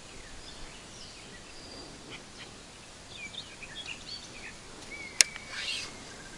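Small birds chirping in short scattered calls over quiet outdoor background noise, with one sharp click about five seconds in, followed by a brief hiss.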